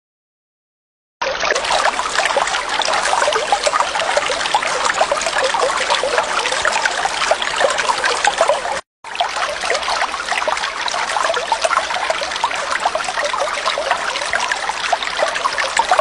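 Stream water running and babbling. It starts about a second in as a steady dense rush with small bubbling splashes, and cuts out for a moment about nine seconds in before carrying on.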